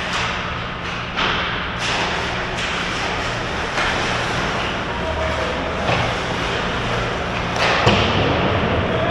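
Ice hockey play in front of the goal: skate blades scraping and carving the ice, with several sharp knocks of sticks and puck, the loudest about 8 seconds in, over a steady low hum.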